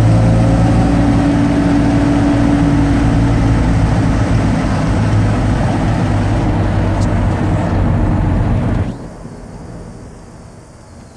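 1955 Fargo truck's engine running steadily at road speed, heard inside the cab along with road noise. About nine seconds in the sound drops suddenly to a much quieter, duller hum.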